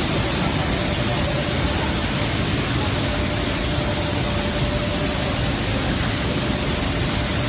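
Steady noise of a running maize flour milling plant's machinery, even and unbroken, with a faint steady tone through it.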